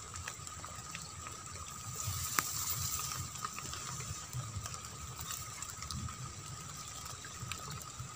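Light rain on a flooded rice paddy: a soft steady hiss with scattered small drop ticks, one sharper tick about two and a half seconds in, over a faint steady high-pitched drone.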